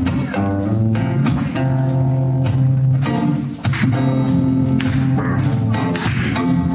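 Live band playing: an acoustic guitar strummed over electric bass and a drum kit, in a steady beat.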